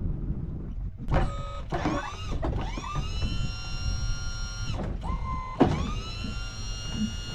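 Electric power unit of a Sno-Power plow whining in about five separate runs, each rising in pitch as the motor spins up and then holding steady, while the blade's wings and angle are moved. A low engine rumble continues underneath.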